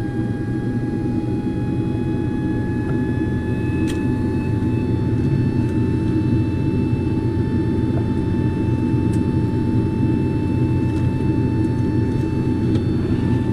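Carrier Infinity furnace's draft inducer blower running fast: a steady rush with a whine on top that creeps slightly higher in pitch over the first few seconds. It ramps up like this trying to pull enough vacuum to close the pressure switch, which it cannot, because birds are blocking the flue pipe.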